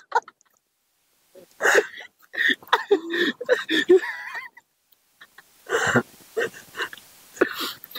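Short, indistinct bursts of human voices in two spells, with a pause near the middle.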